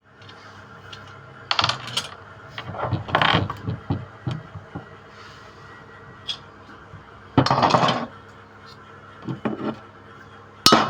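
Clatter and scraping of metal tools and motor parts being handled during a washing machine motor repair, in a few short irregular bursts over a steady faint hum.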